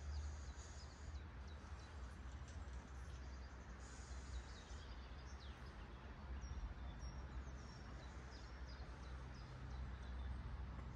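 Birds chirping, with many short high calls scattered throughout, over a steady outdoor hiss and a low rumble.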